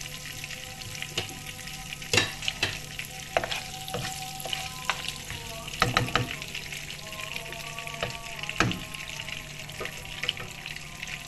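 Whole spices (cardamom, cinnamon sticks and cloves) sizzling in hot oil and butter in a non-stick kadhai, the tempering stage of a curry. A wooden spatula stirs them and knocks against the pan a few times, loudest about two and six seconds in.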